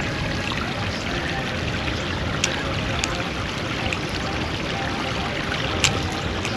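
Shallow creek running over rocks, a steady rush of water. A few sharp clicks of a balisong's handles knocking together as it is flipped stand out over it, the loudest near the end.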